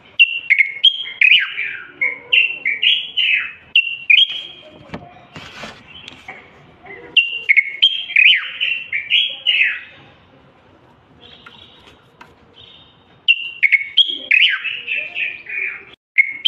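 Common bulbul singing: three bursts of fast, falling whistled notes, with pauses of a few seconds between them.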